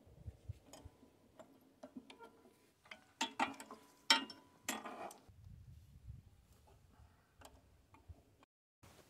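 A wrench clicking and clinking against the metal hydraulic hose fittings on a tractor backhoe cylinder as the fittings are loosened: scattered light metal clicks, busiest and loudest about three to five seconds in.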